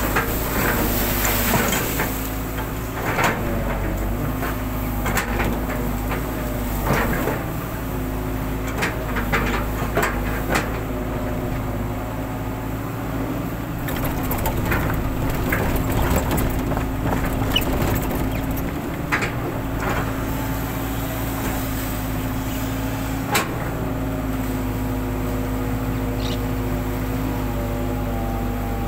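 Hitachi long-reach excavator's diesel engine running steadily under hydraulic load, with scattered knocks and clanks from the boom and bucket as it digs and dumps mud; one sharp knock stands out about 23 seconds in.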